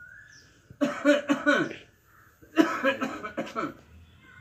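A man coughing in two bouts, the first about a second in and the second at about two and a half seconds.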